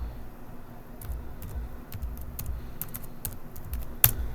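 Irregular clicking of computer keyboard keys, with one sharper, louder click near the end, over a low steady hum.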